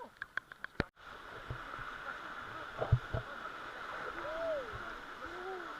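Steady rushing of river water under a rafting boat, with a quick run of clicks in the first second before the sound cuts abruptly. Two dull knocks come about three seconds in, and faint drawn-out voices call near the end.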